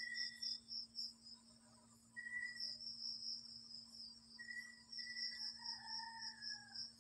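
Insects chirping in a steady, high, pulsing trill over a low steady hum, with a few short faint higher tones, one gliding downward near the end.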